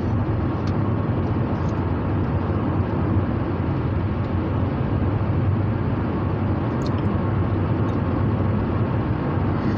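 Steady road and engine noise inside a moving car's cabin: a low, even rumble.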